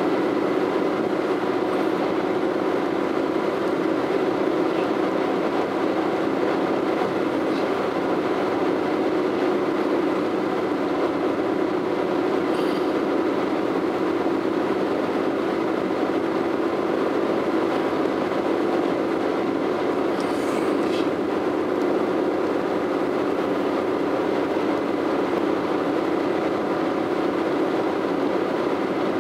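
Steady in-cabin road noise of a car cruising at highway speed: tyre rumble on the pavement and engine drone at an even level.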